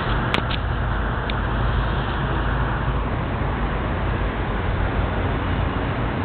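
Steady city traffic noise with a low rumble, and a few small clicks in the first second and a half.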